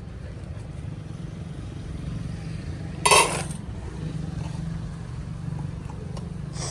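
Low, steady motor rumble, with one short, loud sharp sound about three seconds in.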